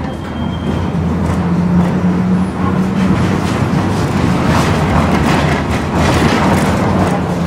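Tram running along a city street, heard from inside the car: a steady low electric hum over the rumble of wheels on the rails, with scattered knocks and rattles.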